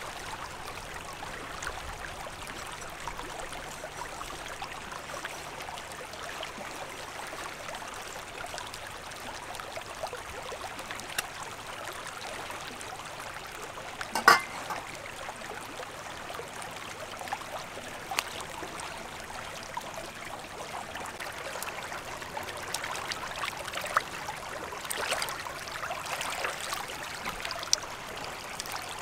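Shallow stream water running and splashing over rocks as a fish is rinsed by hand in it, with scattered small splashes and one sharp knock about halfway through.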